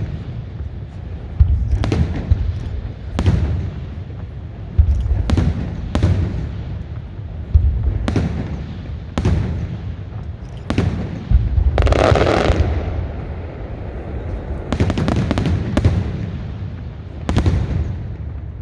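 Aerial firework shells bursting overhead, a loud bang with a deep rumble every second or two. About two-thirds through, one longer crackling burst stands out, followed by a quick cluster of several bangs.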